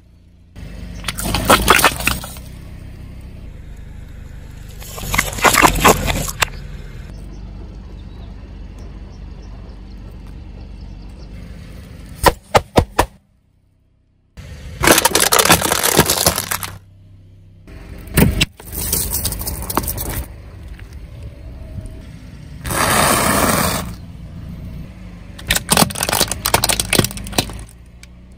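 Car tyre rolling slowly over toys on asphalt and crushing them: a run of separate crunching, cracking and popping bursts a few seconds apart, one of them a quick cluster of sharp cracks, with a low tyre-on-road rumble between them.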